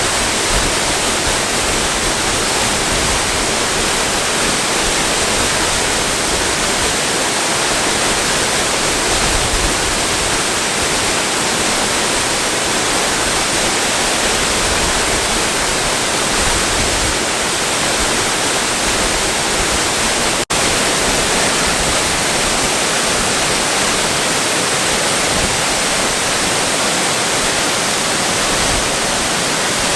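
Waterfall: a steady, loud rush of falling water, even across low and high pitches. It cuts out for an instant about two-thirds of the way through.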